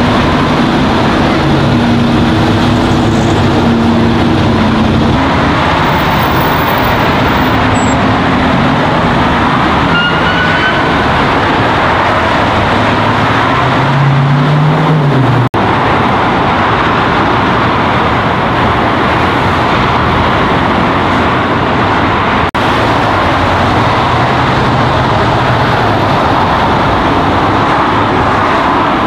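Steady, loud freeway traffic noise: cars and trucks passing close by, with tyre roar and engine hum.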